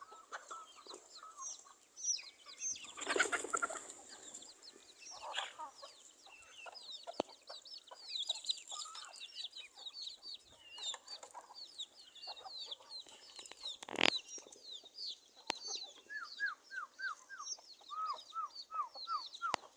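Chickens clucking, with rapid high peeping chirps all the way through. A louder squawking call comes about three seconds in, and a run of evenly spaced clucks near the end. A sharp click sounds about two thirds of the way through.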